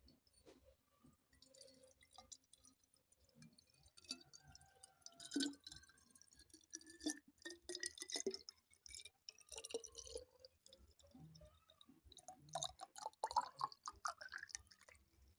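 Water dripping and trickling, with many small clicks and clinks of glass. A faint tone rises steadily through the middle.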